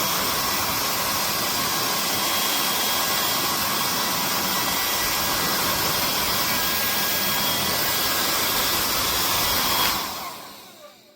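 Amurhey 2400 W ionic travel hair dryer running: a steady, loud rush of air with a faint whine in it. About ten seconds in it is switched off, and the sound dies away over about a second as the fan spins down.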